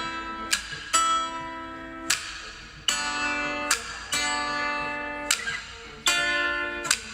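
Background music: plucked guitar chords, each struck sharply and left to ring and fade, about one to two a second.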